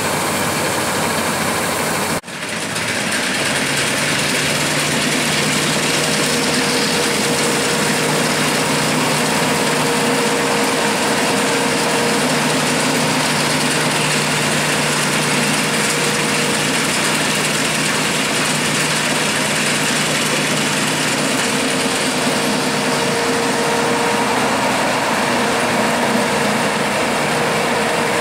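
Bizon Rekord Z058 combine harvester running steadily: diesel engine and threshing machinery with a low hum over a dense mechanical noise. There is a short break in the sound about two seconds in.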